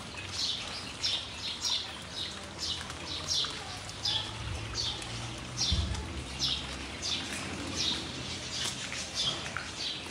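A bird calls over and over, a short falling chirp about once or twice a second, with a faint low rumble underneath and one soft low thump about halfway through.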